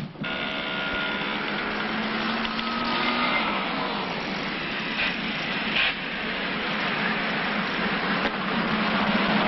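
Engine of a Renault Estafette van with a canvas-covered back, running steadily along a road with tyre and road noise, growing louder near the end as it comes closer.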